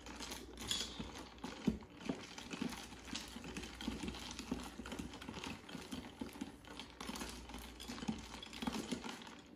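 Ice cubes rattling and clinking in a plastic cup as iced coffee is stirred with a long metal spoon: a quick, uneven clatter that runs on without pause.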